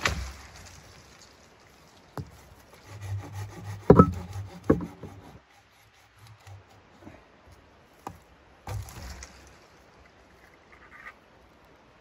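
Tree branch being cut with a folding pruning saw: a loud crack of wood at the start, sharp knocks and cracks around the middle, and short spells of saw strokes rasping through the wood.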